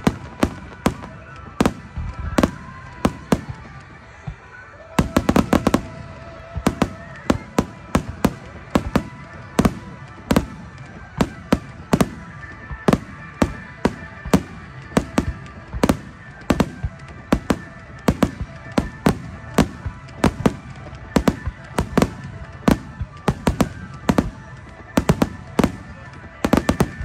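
Aerial fireworks shells bursting in rapid succession, two or three sharp bangs a second, with a short lull about four seconds in before the barrage picks up again. Music plays underneath.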